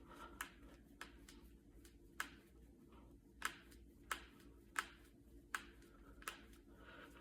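Finger knuckles being cracked: about eight sharp, separate pops, one every half second to a second, with faint rustling of the hands between them.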